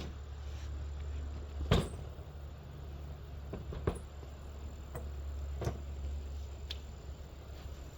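A few scattered sharp knocks and clicks, about four or five, the loudest about two seconds in, over a steady low hum.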